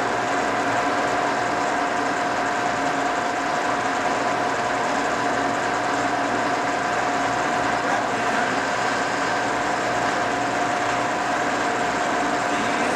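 Cincinnati No. 5 vertical milling machine running under power, its 25 HP drive giving a steady mechanical whine that holds constant throughout.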